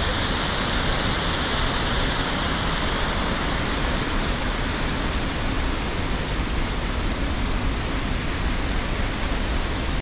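Waterfall rushing: a steady, loud wash of falling water, its hiss slightly softening a few seconds in.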